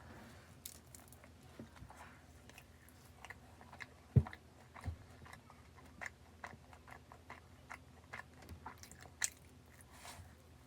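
Close-up eating sounds of a matcha cruffin, a croissant-dough pastry: repeated crisp bites and crunchy chewing. There is one louder low thump about four seconds in.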